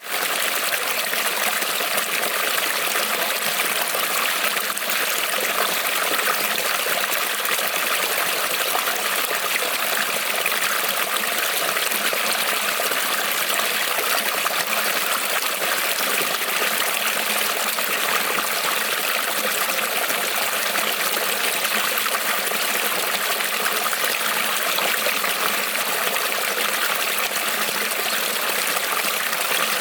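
Creek water rippling and trickling over stones, a steady rushing babble.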